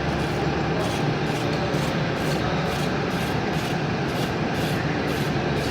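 Steady mechanical drone and hiss of workshop background noise, with a faint, regular high ticking about twice a second through most of it.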